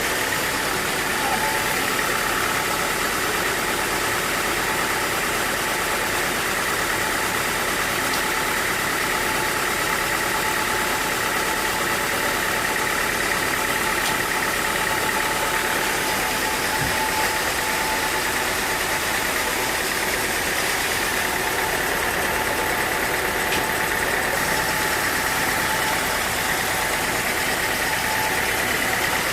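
Sawmill machinery running steadily, with an engine-like hum and a constant high whine that holds at one level throughout.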